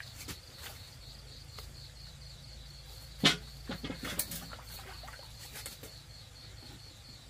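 Crickets chirping in a steady, fast pulse, with a few sudden sharp splashes and knocks from a toddler in a metal basin of water; the loudest comes about three seconds in.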